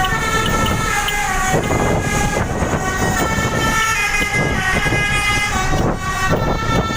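Bus 'telolet' musical air horns playing a tune of stepped, held notes over the bus engine running, with a short break about six seconds in.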